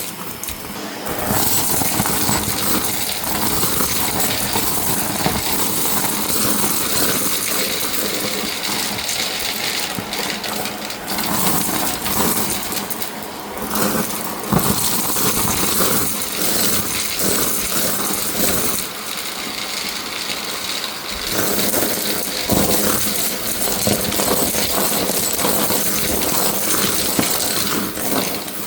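Shark vacuum cleaner running and sucking up a scattered debris mix from a rug, the hard bits rattling and clinking through the nozzle over the steady motor noise.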